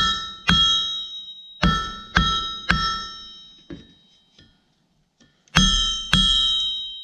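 Hammer blows on a blacksmith's anvil while flattening a short section of hot steel rod, each blow followed by a bright anvil ring that dies away. The blows come in quick groups of about three, with a couple of lighter taps and a pause of about a second before three more near the end.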